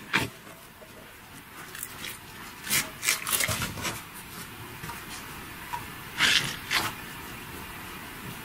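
Squishy rubber stress toys squeezed, picked up and set down on a wooden tabletop by hand: short soft knocks and squishes in three brief clusters, near the start, in the middle and about three-quarters of the way through.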